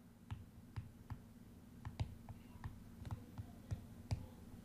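A stylus tip clicking on a tablet's glass screen as words are handwritten: faint, irregular taps, a few a second, over a low steady hum.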